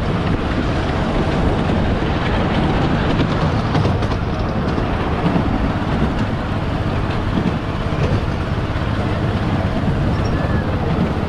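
Miniature ride-on railway train running along the track, heard from aboard: a steady rumble of the wheels on the rails.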